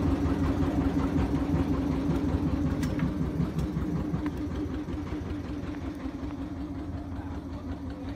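Boat's motor idling steadily with a low hum, growing gradually fainter.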